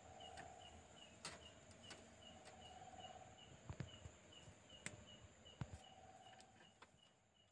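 Near silence with a faint high chirp repeating evenly about two or three times a second, and scattered light clicks and taps from a red giant flying squirrel's claws on wood and tile. It all fades out near the end.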